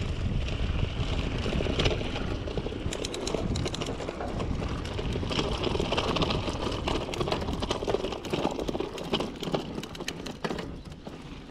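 Mountain bike descending a dirt singletrack at speed: wind rumbling on the camera microphone and knobby tyres running over dirt and small stones, with frequent sharp rattles and clicks from the bike over the bumps. The wind rumble is heaviest in the first few seconds and eases near the end.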